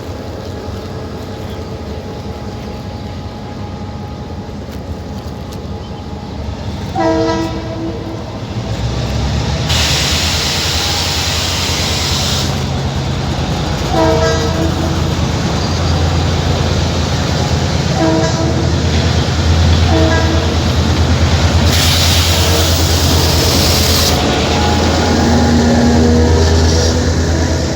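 A passenger train runs with a low engine rumble that grows louder about eight seconds in. Its horn sounds four short blasts, and there are two bursts of hiss lasting a couple of seconds each.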